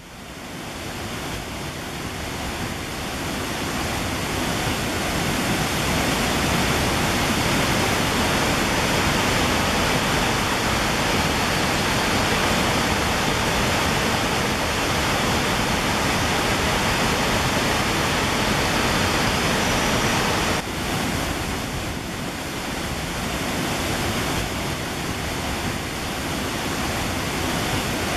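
Steady rushing of a waterfall, fading in over the first few seconds and dipping slightly in level about two-thirds of the way through.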